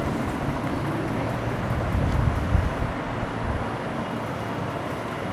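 Steady low rumbling background noise, like distant traffic, with a few brief knocks about two to three seconds in.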